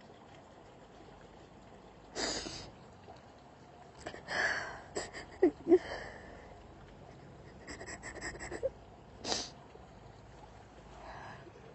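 A woman weeping into her hands: irregular sniffs and gasping breaths, with a couple of short sobbing catches in her voice about five and a half seconds in.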